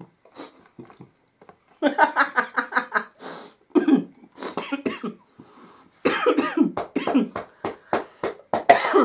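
A woman laughing in quick rhythmic bursts that turn into a fit of repeated coughing. She is choking on cottage-cheese filling that went down the wrong way while she laughed.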